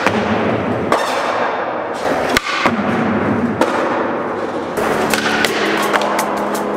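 Skateboard wheels rolling on pavement, with a few sharp clacks of the board being popped and landed; the loudest clack comes about two and a half seconds in.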